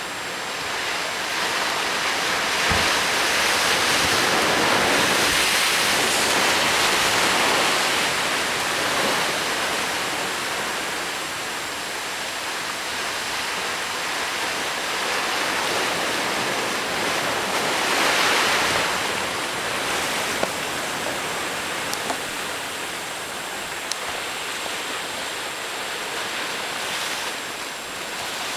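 Sea surf washing over rocks below, a steady rushing that swells louder a few seconds in and again about two-thirds of the way through. A few short sharp clicks sound in the second half.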